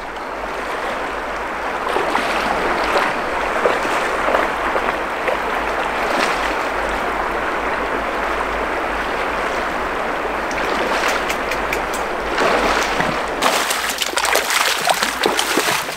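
Shallow river water flowing steadily over rocks. From about ten seconds in, splashing steps of someone wading through the current come in over it.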